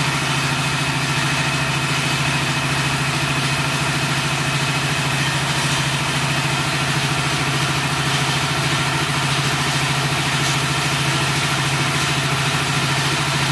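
CNC three-roll profile bending machine running as it rolls an aluminium profile into an arc: a steady, even motor hum with a few faint higher tones above it.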